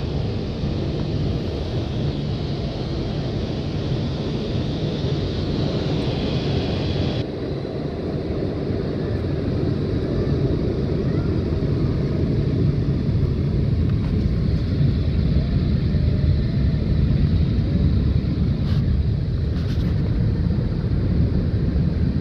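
Rollover car wash heard from inside the car: the rotating cloth brushes sweeping the bodywork and the gantry's brush motors running make a steady, dense low rumble. A higher hissing over it cuts off suddenly about seven seconds in.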